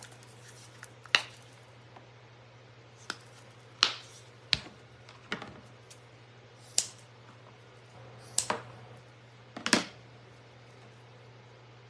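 Craft pieces and tools being handled on a tabletop: scattered sharp taps and clicks, about eight in all, as things are picked up and set down. A faint steady low hum runs underneath.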